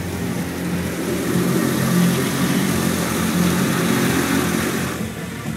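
Automatic car wash spraying water over a car, heard from inside the cabin: a steady rushing with a low hum beneath, dropping off about five seconds in.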